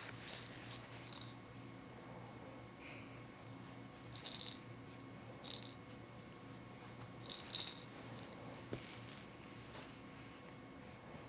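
Baby toys rattling in several short bursts as a baby handles and shakes them.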